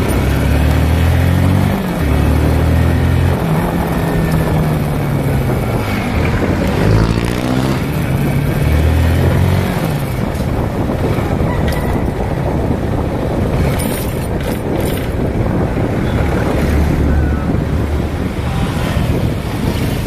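Motorcycle engine running while riding in traffic, its pitch rising and falling with the throttle and gear changes. Engine noise gives way to a rougher rush of wind and road noise in the second half.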